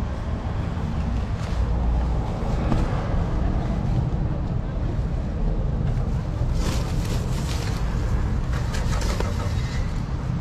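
Steady low rumbling outdoor background noise, with a few short clicks and rustles in the second half.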